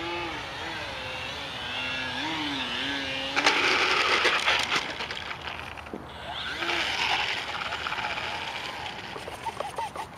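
An RC aerobatic plane's electric motor and propeller whine, the pitch wavering up and down as the throttle is worked. About three and a half seconds in, a sudden loud rush of noise comes as the plane comes down on the asphalt, with a second rush and a few clicks after it.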